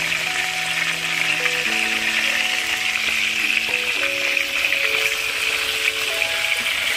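Slit whole eggplants frying in hot oil in a pan, a steady sizzle and crackle. Slow background music of held notes plays underneath.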